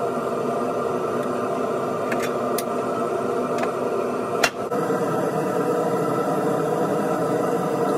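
A few light metal clicks from a wrench working the bolts of the lathe's belt tensioner bracket, then one sharper knock about four and a half seconds in, over a steady background hum.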